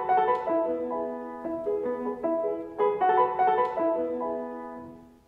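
Piano music: a short phrase of struck chords and melody notes, played twice, fading out near the end.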